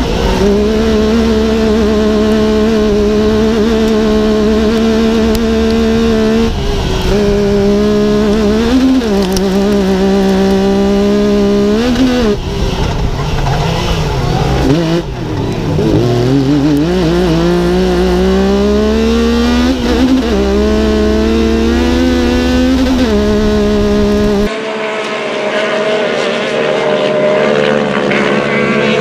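Side-by-side race car's engine held at high revs, heard from inside the cab, its pitch dipping briefly several times as the throttle is lifted and then climbing steadily as it accelerates. About 24 seconds in the sound switches to thinner, more distant race engines.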